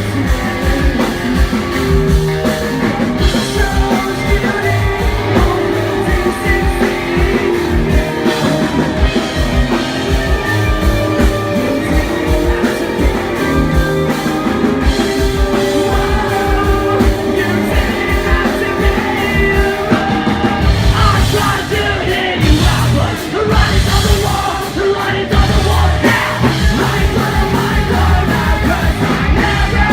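A rock band playing live at full volume: driving drums, distorted guitars and bass, with singing over the top.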